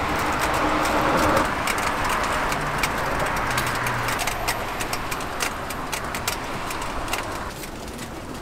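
Road traffic running by on the street, a steady rush that eases off near the end, with scattered light metallic clicks of tongs and spatula on a steel griddle.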